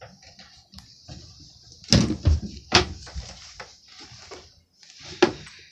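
Knocks and thumps of a person climbing onto a chair and a low wooden bookshelf: a loud thump about two seconds in, another just under a second later, and a sharp knock near the end, with smaller clicks between.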